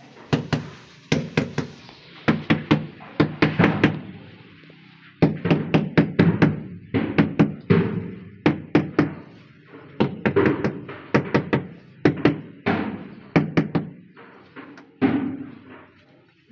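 Rubber mallet tapping a large ceramic wall tile, bedding it into the adhesive on the wall. The blows come in quick runs of a few taps a second, with short pauses between runs.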